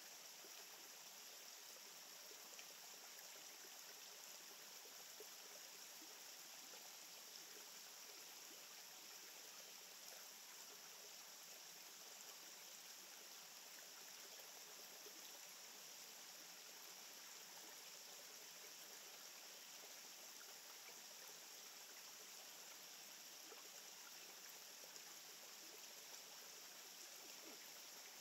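Faint, steady hiss of outdoor ambience with no distinct events.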